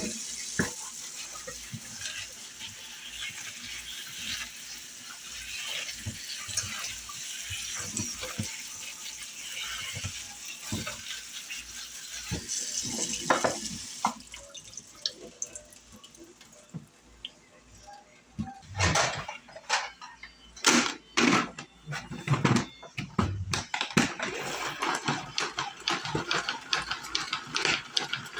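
Water running from a tap into a kitchen sink for roughly the first half. Then it stops and a run of knocks and clatter follows.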